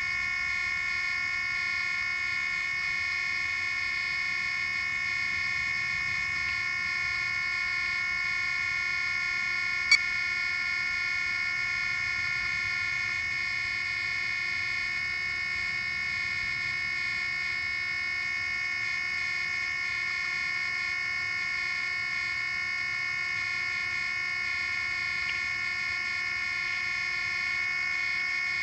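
Steady electronic whine made of several high tones, unchanging throughout, from the grounded RC helicopter's powered electronics as picked up by its onboard camera. One sharp click about ten seconds in.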